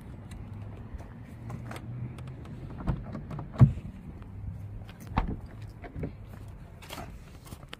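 A series of clicks and clunks from the door latch and handle of a 2016 BMW 320i (F30), the loudest about halfway through, as the car is unlocked with the key because the battery is dead and the rear door is pulled open.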